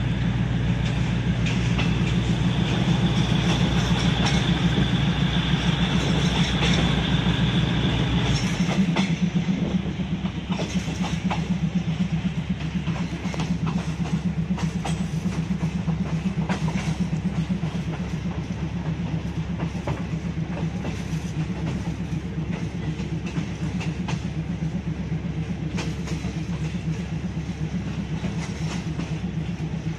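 Passenger train running, heard from on board: steady rumble of the wheels on the rails with faint clicks. A heavy low drone drops away about eight or nine seconds in, leaving a lighter running noise.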